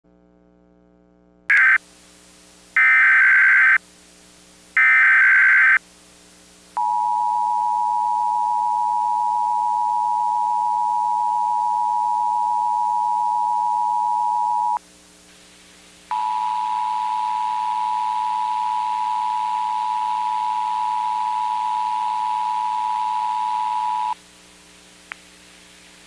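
Emergency Alert System broadcast tones: three short bursts of the screechy digital header data, then the two-tone attention signal held steady for about eight seconds. After a brief gap the attention tone sounds again for about eight seconds, this time with hiss over it.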